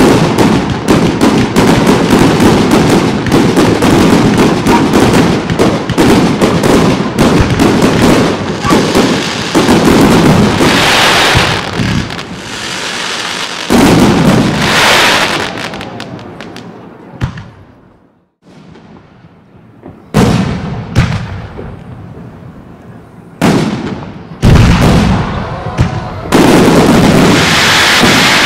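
Fireworks display: a dense, rapid barrage of cracks and bangs for the first several seconds. Then come separate aerial shell bursts, each a bang followed by a hissing crackle of glittering stars, with a brief lull about two-thirds of the way through and more bursts toward the end.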